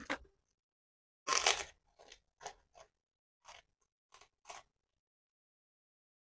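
Crisp white Indonesian cracker (kerupuk) being bitten and chewed: a loud crunch about a second and a half in, then six shorter crunches of chewing, after a brief crunch at the very start.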